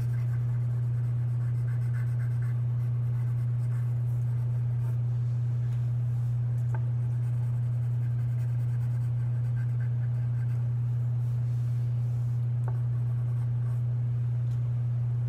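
Coloured pencil shading on paper, a soft continual scratching, over a loud, steady low hum that is the strongest sound throughout. Two light ticks come about halfway and again near the end.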